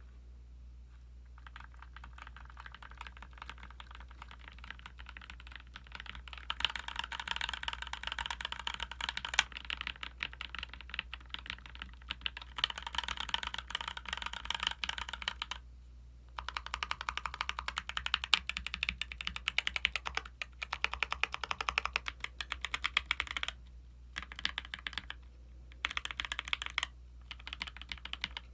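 Typing on a mechanical keyboard with Durock linear switches: soft keystrokes at first, then fast runs of key presses broken by short pauses. A faint steady low hum sits underneath.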